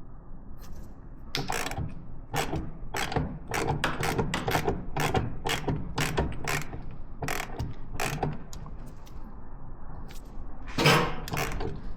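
A jack being worked under the engine to raise the motor: a run of sharp ratcheting metal clicks, two or three a second, that stops after about eight seconds. The motor is being lifted so the front motor mount lines up with the frame rail for the bolts.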